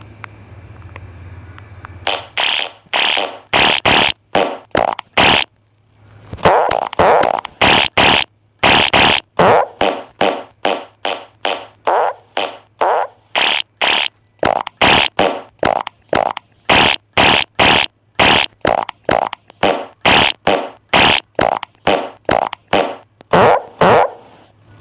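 A rapid string of short fart sounds, about two a second, starting about two seconds in, with a brief pause and then one longer, drawn-out one a little after the six-second mark.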